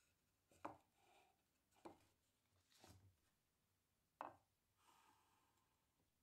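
Plywood parts of a home-made disc sander being handled and fitted together: four light wooden knocks about a second apart, the sharpest about four seconds in, with soft sliding scrapes between them.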